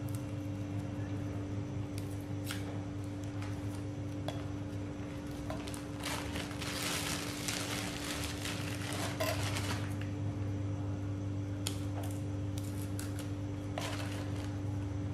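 A thin plastic bag crinkling as it is handled and cut open with a kitchen knife, loudest for a few seconds in the middle. A few light clicks and a steady low hum run underneath.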